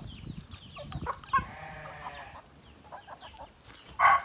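Chickens clucking, with scattered short high cheeping calls. About four seconds in, a rooster starts crowing loudly.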